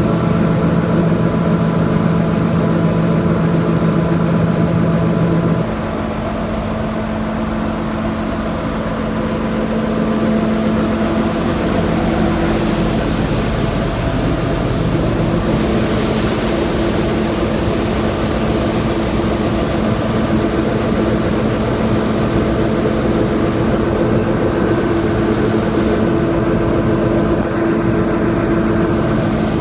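Heavy diesel farm harvest machinery running steadily at working speed, a constant engine drone. The sound shifts abruptly a few times, about six, fifteen and twenty-four seconds in.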